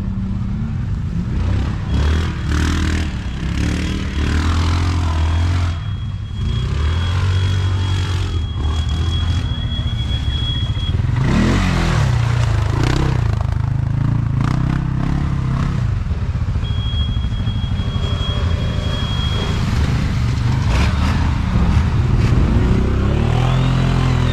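ATV (quad) engines running and revving up and down on a dirt track, with scattered clattering knocks.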